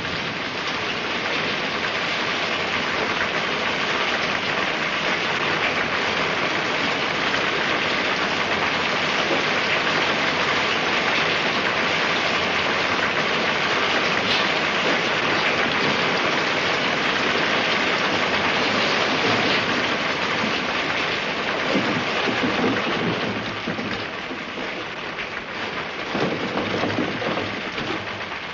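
Heavy rain pouring down steadily, a dense downpour.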